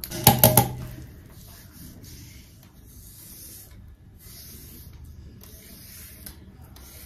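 A few knocks at the start, then a shower spraying water in a steady hiss that comes in stretches of a second or more with short breaks.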